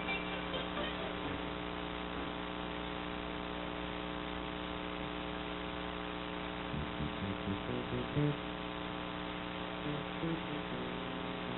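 Steady electrical mains hum, a buzz with many evenly spaced overtones, with a few faint brief blips about seven to eight seconds in and again near ten seconds.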